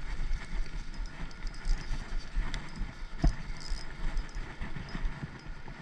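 Spinning reel being cranked while a hooked trout is played, with uneven low rumbling and thumps of wind and handling on the microphone and a sharp knock a little past halfway.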